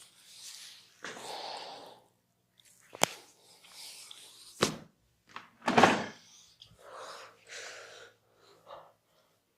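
Massage sounds: hands rubbing and working over skin, broken by two sharp snaps about three and four and a half seconds in and a louder hit just before six seconds.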